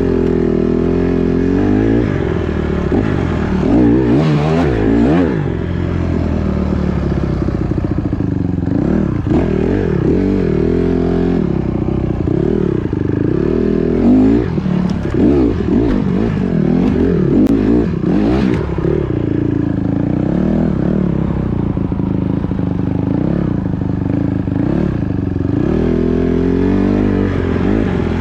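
Four-stroke dirt bikes revving up and down as they ride, the engine pitch rising and falling again and again with throttle and gear changes.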